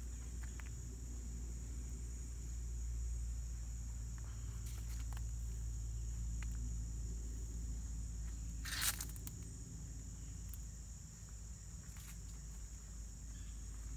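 A steady high-pitched chorus of insects in a swampy forest, over a low rumble. A single short, sharp noise stands out about nine seconds in.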